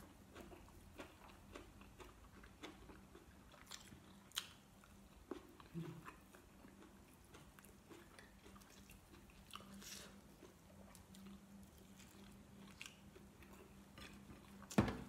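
Faint close-up chewing and mouth sounds of a person eating sticky rice and braised chicken liver and heart by hand, with scattered soft clicks over a steady low hum. A louder burst of noise comes just before the end.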